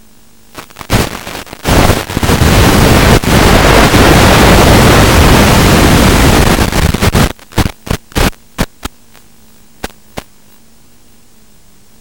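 Radio static from the analog FPV video link as its signal breaks up: a few crackles about half a second in, a loud hiss lasting roughly five seconds, then short crackles that die out about ten seconds in. A faint steady hum lies underneath.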